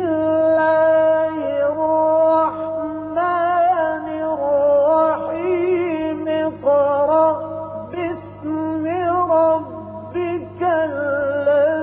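A single voice chanting a slow melody unaccompanied, with long held notes that break into wavering, ornamented turns, over a steady low hum.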